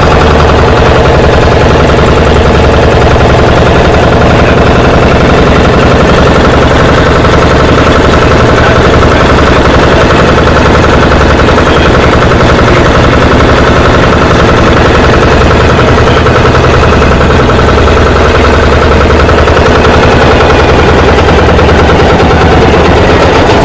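Loud engine running steadily close to the microphone, a rapid, even firing rhythm with a steady hum under it.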